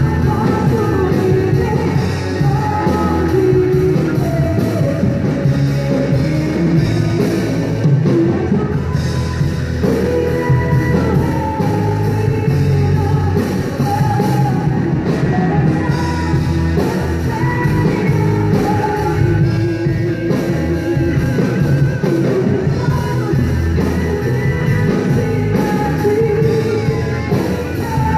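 Live Christian rock band playing, a singer's voice carried over the drums and the rest of the band.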